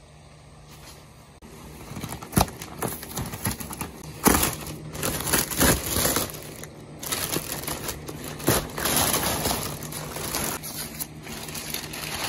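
Plastic masking sheet and masking tape being peeled off a car door and bunched up by hand: an uneven run of crinkling, rustling and tearing that starts about a second and a half in.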